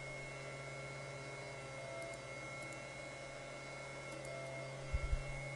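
Steady low electrical hum with faint hiss, the mains hum picked up by the recording microphone. A few faint ticks come about two seconds in and again near four seconds, and a couple of soft low thumps about five seconds in.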